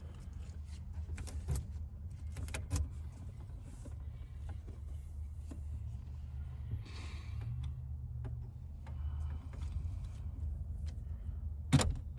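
Light clicks and knocks of tools and truck parts being handled, with a louder knock near the end, over a steady low hum.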